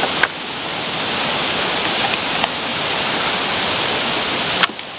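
Steady rushing of water, an even hiss. It breaks off briefly about a quarter second in and drops again near the end.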